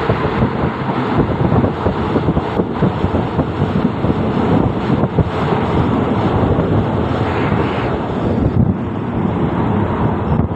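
Running noise of a moving passenger train heard from an open carriage window: a steady low rumble from the wheels on the rails, mixed with wind buffeting the microphone.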